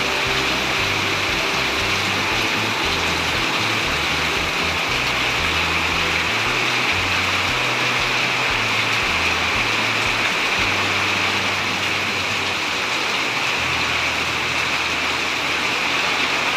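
Heavy rain pouring down steadily as a dense, even hiss, with the low bass notes of background music moving underneath.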